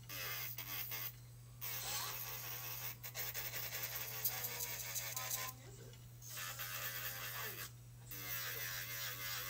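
Electric nail file (Mani Pro Passport) running with a fine sanding band, buffing the shine off the nail tips so the gel polish will adhere. A steady motor hum sits under a rasping hiss of the band on the nail, which breaks off briefly three times.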